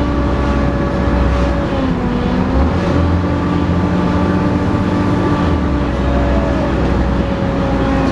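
Volvo B7TL bus's six-cylinder turbodiesel under load, heard on board, with a deep engine rumble and a steady vacuum-cleaner-like whine. The whine dips in pitch about two seconds in and recovers a second later.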